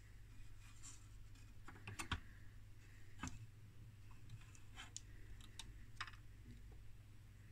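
Faint scattered clicks and taps of a circuit board being handled and lifted out of an electronic unit's plastic and metal chassis, a few louder ones about two and three seconds in, over a low steady hum.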